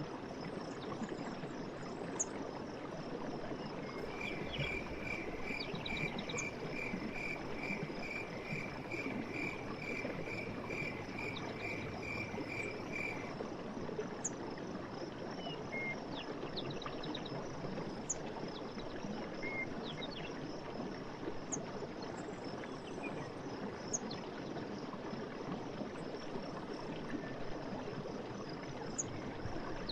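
Steady rush of running stream water under a forest chorus: a continuous high insect buzz, a repeated call of about two notes a second lasting several seconds from about four seconds in, and scattered short bird chirps.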